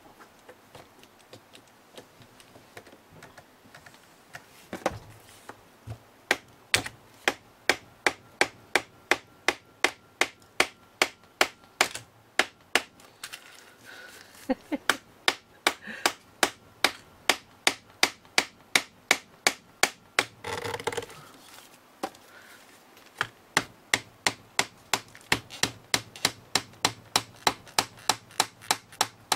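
Hammer tapping on a knitting machine's metal needle retainer bar, forcing off its plastic part, in a steady run of strikes about twice a second. The strikes stop for a couple of seconds partway through, with a brief rustle, then start again.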